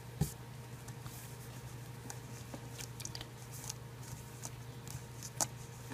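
Soft rustling and a few light ticks of pinned cotton fabric being handled and turned over, over a steady low hum.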